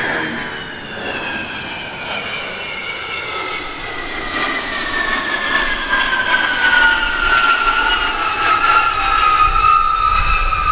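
Lockheed C-5 Galaxy's four turbofan engines at power on a low pass, accelerating: a high whine that falls steadily in pitch as the aircraft passes and banks away, growing louder in the second half with a deepening rumble near the end.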